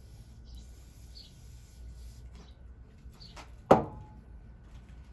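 Aerosol brake cleaner spraying into a motorcycle carburettor in a short hiss from about half a second in to about two seconds, followed by a single sharp knock with a brief ring near the end, the loudest sound. Birds chirp now and then.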